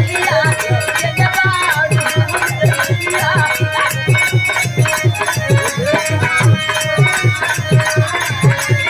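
Live Bhojpuri folk stage music in an instrumental passage: a quick, even drum beat under a winding melody line, with sharp high clicks of hand percussion throughout.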